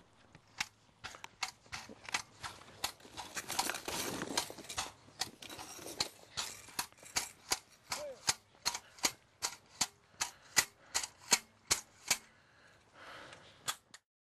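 A long run of sharp strikes, about two a second and most regular in the second half: staples for an erosion-control blanket being driven into hard, stony ground.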